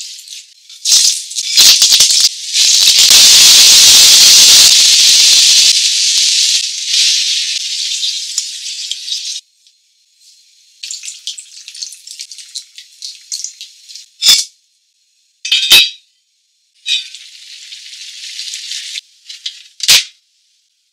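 Hot oil sizzling and spitting in a frying pan as scallion and ginger fry, loudest a few seconds in and cutting off abruptly about nine seconds in. After that come softer patches of sizzling and several sharp clicks.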